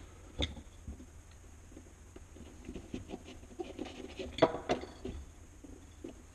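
Hand-sewing handling noise at a wooden workbench: light rustles, scratches and small clicks as a leather-soled suede boot and thin metal florist wire are handled, with a sharper knock about four and a half seconds in.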